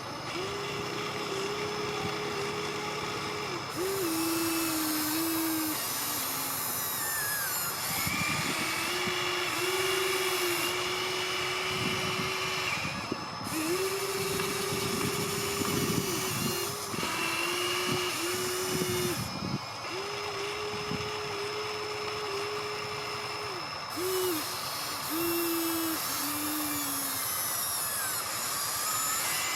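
Small electric motors of radio-controlled construction models whining in runs of a few seconds, starting and stopping repeatedly, with the pitch stepping down in places.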